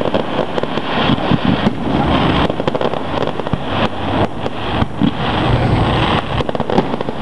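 Aerial fireworks going off in a rapid, irregular string of bangs and crackles over a constant noisy rumble.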